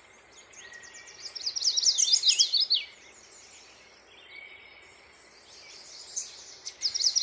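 Small songbirds chirping: quick runs of high, downward-sweeping chirps, loudest around one and a half to three seconds in and again near the end, over a faint steady hiss.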